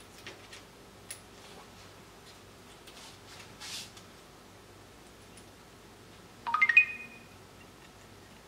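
Small clicks and rustles from handling electronic parts on a circuit board. About six and a half seconds in comes a quick rattle of clicks and a brief metallic ringing clink.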